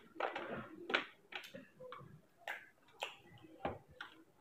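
Close-up eating sounds: wet chewing and lip-smacking with fingers mixing rice and curry on a steel plate, heard as an irregular run of sharp clicks and smacks, several a second.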